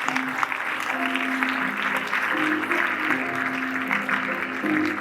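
Music playing in held notes over an audience clapping steadily in a large hall.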